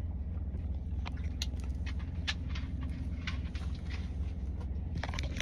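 Steady low rumble of a car heard from inside the cabin, with scattered light clicks and taps close to the microphone.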